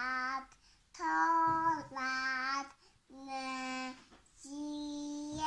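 Young girl singing a song in long held notes, about five sung phrases with short breaths between them.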